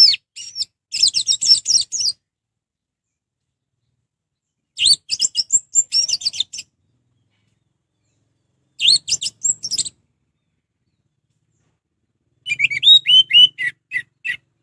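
Orange-headed thrush (anis merah) singing in full song: four bursts of fast, varied, high-pitched phrases, each a second or two long, separated by a few seconds of silence. The last burst, near the end, runs down in a series of falling notes.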